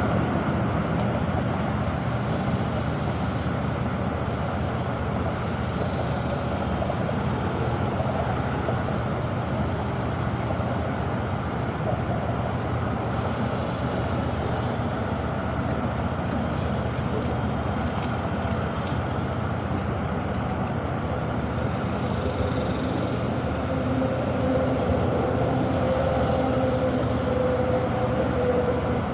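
Steady rumble of road traffic, with a heavy vehicle's engine running and a faint humming tone in the last few seconds.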